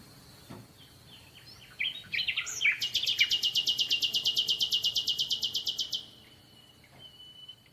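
Bird-like chirping: a few short falling chirps, then a loud, very even high trill of about a dozen notes a second lasting about three seconds, which cuts off sharply.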